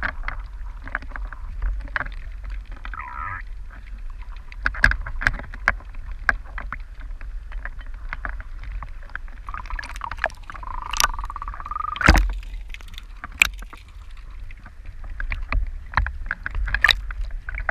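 Small sea-surface waves lapping and splashing against a camera held at the waterline, with irregular sharp clicks and slaps over a low rumble, and a louder splash about twelve seconds in.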